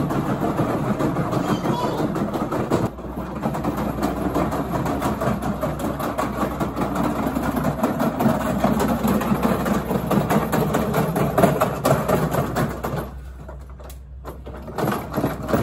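Hard plastic wheels of a ride-on toy car rolling and rattling over paving, a steady rumble that eases off near the end.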